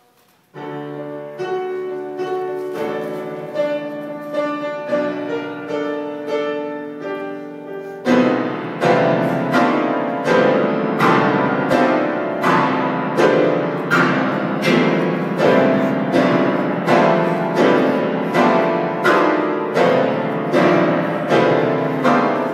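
Piano playing a classical piece: it comes in about half a second in with a softer, even passage, then about eight seconds in turns much louder, with heavy chords struck about once a second.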